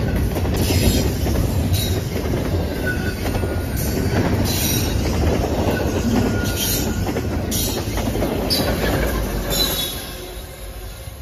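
Double-stack intermodal well cars of a freight train rolling past with a steady rumble and clatter, the wheels squealing in short high-pitched bursts about once a second. The sound drops off near the end.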